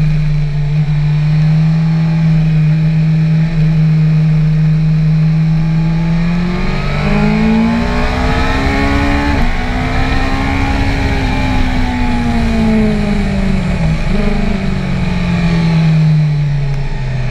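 BMW S1000R's inline-four engine under the rider, with heavy wind rumble on the handlebar-mounted camera. The engine holds a steady note, then rises in pitch as the bike accelerates with a brief break about nine seconds in, arcs over, jumps briefly near fourteen seconds and falls away toward the end as the bike slows.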